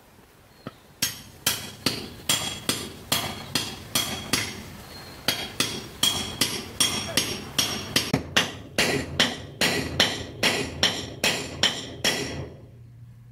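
Hammer striking the top of a small steel knife blade set in the end of a wooden stick, driving it into the handle: a steady run of sharp metallic strikes, two to three a second, each ringing briefly. The strikes quicken after about eight seconds and stop about twelve seconds in.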